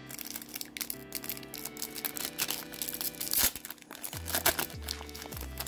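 Foil trading-card booster pack wrapper crinkling and tearing as it is opened, over background music; a low bass line comes in about four seconds in.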